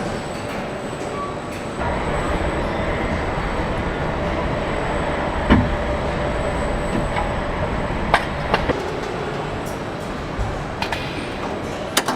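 Car assembly-line machinery running with a steady mechanical rumble and hum, rising slightly about two seconds in, broken by several sharp clanks and clicks.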